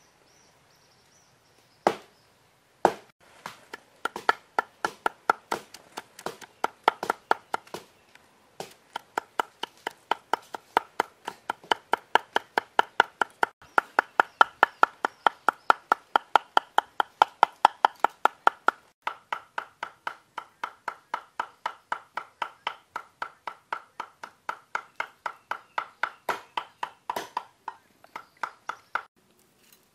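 Cleaver chopping roasted red chillies on a wooden chopping board: a long run of quick, even chops, about four a second, each with a short ringing knock from the blade.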